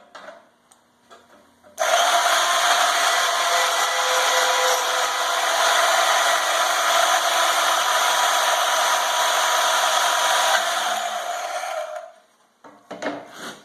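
Bauer 10-amp portable band saw starting about two seconds in and running steadily for about ten seconds as its blade cuts through steel, with a steady whine over the cutting noise. Its pitch rises slightly just before it stops near the end.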